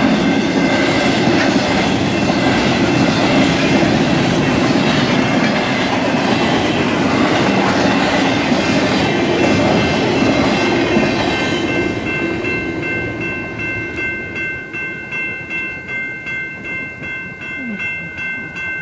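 A fast BNSF freight train of empty flatcars rattles past, its wheels clacking over the rails. The noise fades as the last car clears, about 12 s in. Grade-crossing bells ring throughout as steady high tones, then pulse about twice a second once the train has gone.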